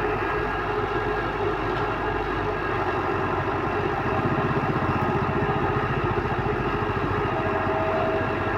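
Excavator's diesel engine running steadily, getting a little louder about halfway through.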